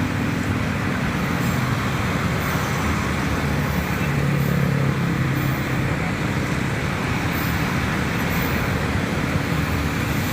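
Long-distance passenger train's carriages rolling past, a steady rumble of wheels on the rails with a low hum.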